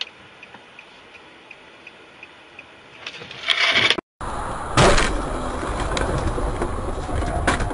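Vehicle dashcam audio: a faint hiss with a regular ticking about three times a second, rising into a loud rush of noise that cuts off suddenly. After the cut comes steady louder road and vehicle noise, with a loud bang about a second in and another sharp knock near the end.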